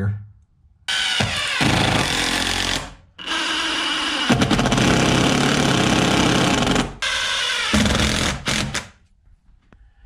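Cordless drill/driver running in three bursts as it drives screws into the wall, the middle burst the longest.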